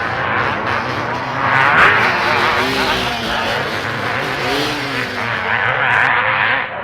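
Several motocross bikes racing, their engines revving with pitch rising and falling as they go by; it swells loudest about two seconds in and again near the end.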